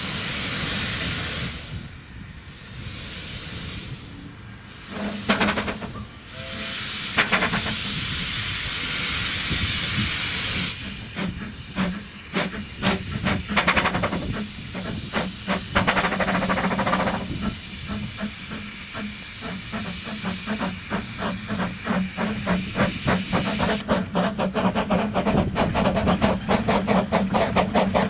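Narrow-gauge steam locomotive starting away with a train: a loud hiss of steam with short breaks at first, then exhaust chuffs from about ten seconds in that quicken into a fast, steady beat as it picks up speed and draws nearer.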